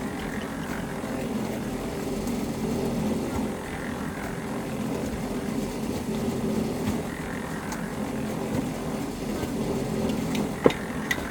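Steady drone of a running motor or engine, with a couple of sharp knocks about ten and a half seconds in.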